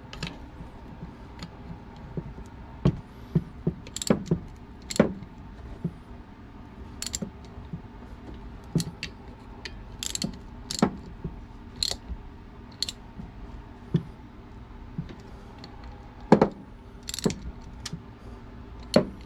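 Hand tools working on the A/C compressor's mounting bolts as they are tightened: irregular clicking, like a ratchet wrench, with a few sharper metallic knocks.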